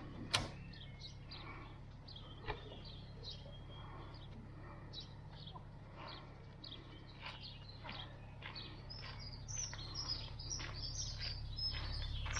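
Small birds singing and chirping: many short high calls, busier towards the end, over a steady low rumble. A sharp click about half a second in.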